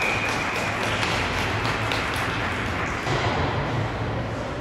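Ice hockey referee's whistle blowing a single high tone that fades about a second in, stopping play after a scramble at the net. Scattered taps and clicks of sticks and skates on the ice follow over a low steady hum.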